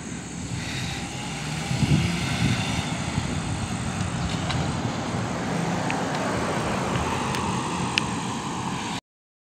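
Cars and a pickup truck driving past on a street: a steady rumble of traffic that swells about two seconds in, with a few faint clicks.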